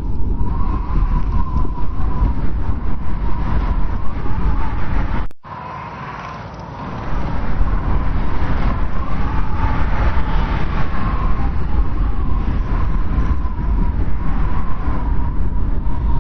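Blizzard wind blowing hard: a steady deep rumble of gusts with a wavering, howling whistle above it. The sound cuts out abruptly about five seconds in and comes back quieter for a second or two before building again.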